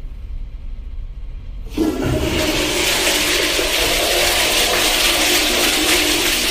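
Commercial flush-valve toilet flushing: a sudden loud rush of water starts about two seconds in and keeps going. The flush is violent enough to blast water up out of the bowl.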